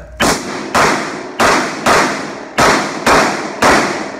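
Pistol shots from a Glock 40 MOS in 10mm Auto: seven fired at a steady pace of about two a second, each ringing on in the echo of an indoor range.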